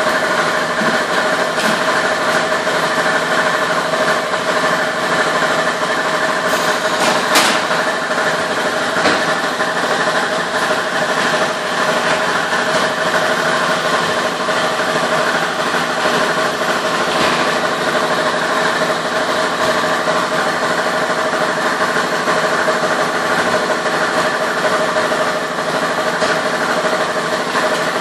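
Industrial plastics-processing machinery running steadily: a constant machine whine over a dense mechanical noise, with occasional sharp clicks.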